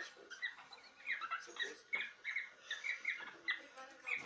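Cockatiels chattering: a quick run of short chirps, several a second, with a few sharp clicks among them.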